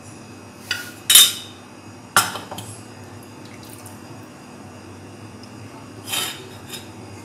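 Kitchenware clinking and knocking as oil is strained from a pan through a plastic strainer into a china bowl: the loudest knock comes about a second in, a sharp one that rings briefly about two seconds in, and two softer clinks near the end.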